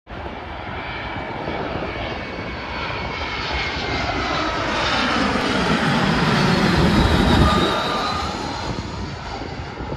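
Jet airliner's engines passing low overhead. The noise swells to a peak about seven seconds in and then eases, with an engine whine that falls in pitch as the plane goes by.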